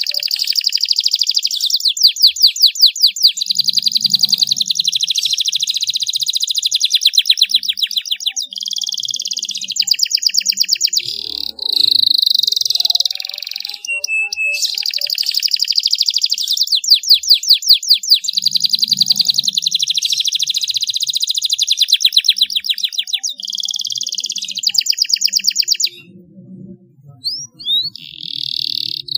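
Domestic canary singing a long, high-pitched song of rolling trills and fast chattering repeats. It breaks off briefly near the end with a couple of short chirps, then starts again.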